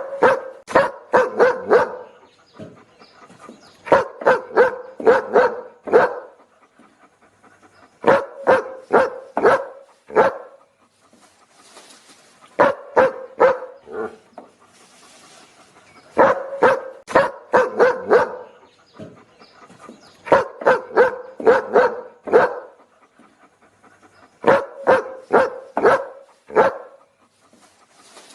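A dog barking in quick bursts of about five to seven barks, each burst lasting about two seconds and repeating roughly every four seconds in a looped pattern, with short breathy pauses between bursts.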